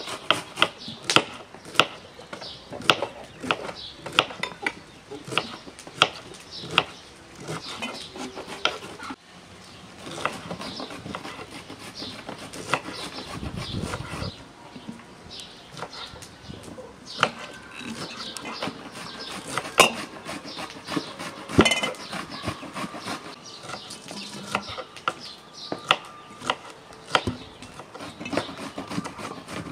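Fresh cucumbers being packed by hand into a glass jar: frequent, irregular knocks and clinks of cucumbers against the glass, with jars shifted on the table.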